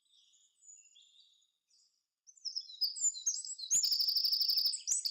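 European wren singing: a few faint high chirps, then from about two seconds in a loud burst of high notes running into a very fast trill.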